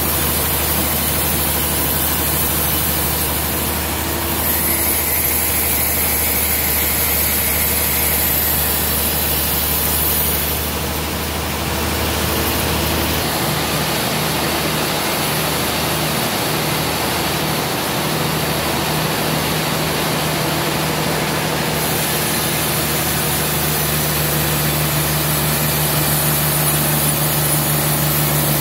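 Sawmill band saw running, its blade cutting through a trembesi (rain tree) log with a steady machine hum and hiss. About halfway through, the low hum drops away and the sound changes, as the cut ends and the machine runs on.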